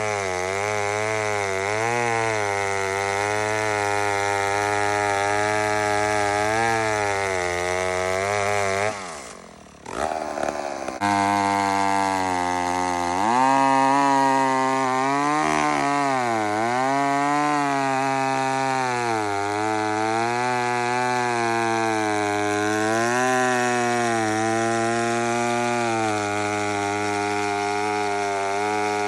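McCulloch Mac 150 80cc two-stroke chainsaw running under load in a cut, its engine pitch wavering and dipping repeatedly as the chain bites into the wood. The sound drops away briefly about nine seconds in, then the saw is back at full running.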